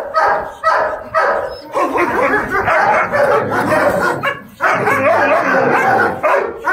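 German Shepherd dog barking repeatedly. The barks come about three a second at first and then run together almost without a break.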